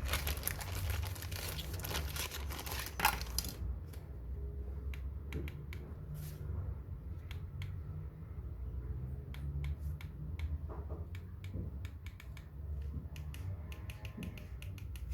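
Plastic remote control being handled: a few seconds of rustling ending in a loud click, then scattered sharp clicks and taps over a steady low hum.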